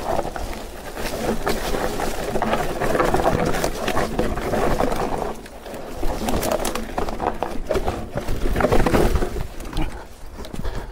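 Haibike AllMtn electric mountain bike ridden down a dirt forest singletrack: constant clatter and rattling of the bike over bumps and roots, with tyre noise on dirt and wind rushing over the microphone. The rattling eases briefly about five seconds in.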